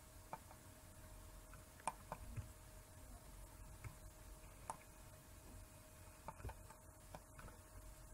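Near silence: room tone with a faint steady hum and a few faint, scattered clicks from a computer mouse and keyboard.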